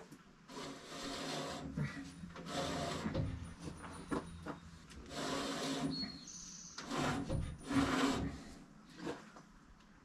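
Bandsaw wheel of a Woodland Mills HM130 MAX sawmill turned by hand, the new band blade rubbing through its guides. It makes a series of rough scraping strokes, each about half a second to a second long, as the blade's tracking is checked.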